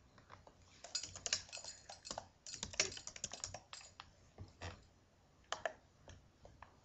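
Typing on a computer keyboard: a quick run of keystrokes for a few seconds, then a handful of single key presses spaced out.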